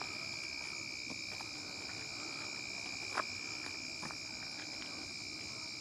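Crickets chirring steadily at night, several high, even pitches at once, with one short click about three seconds in.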